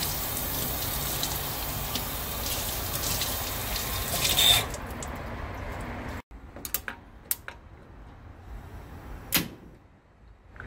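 Water from a faucet running steadily over a whole fish and into a stainless steel sink, stopping about halfway through. After that, a few scattered light clicks, with one louder click near the end.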